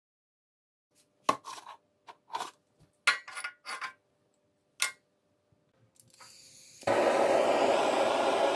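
A few sharp clacks and knocks of a gas canister and a plastic tub being handled on a perforated steel table. Then a faint hiss of gas, and about seven seconds in a butane canister torch burns with a loud, steady rushing hiss.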